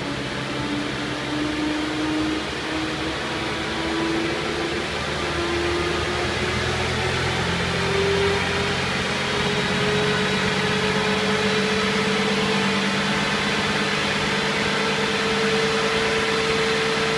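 Audi A5 running on a rolling-road dynamometer, its front wheels driving the rollers, in a slow power run: a whine climbs slowly and steadily in pitch as speed builds, over a steady rushing noise.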